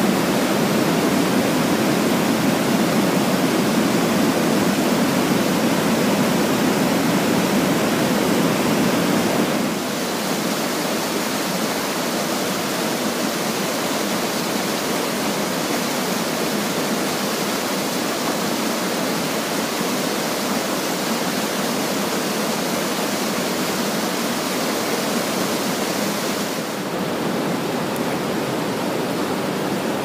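Steady rush of water tumbling down rocky mountain cascades and waterfalls. It shifts to a slightly quieter, different rush about ten seconds in and again near the end.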